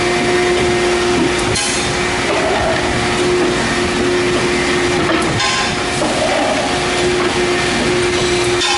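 A CNC plate punching machine runs with a steady machine hum at a fixed pitch, broken by three brief sharp sounds a few seconds apart.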